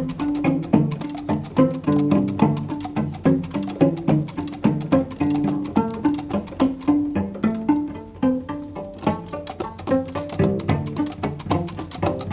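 Background music with a steady beat and plucked string notes.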